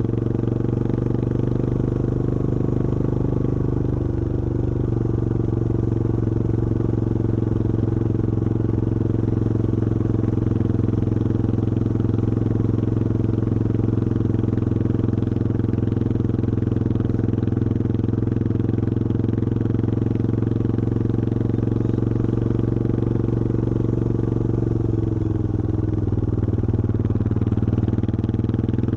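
Yamaha XT225 Serow's 223 cc air-cooled single-cylinder four-stroke engine running at a steady cruising speed while riding, its pitch holding nearly constant with a slight dip about 25 seconds in.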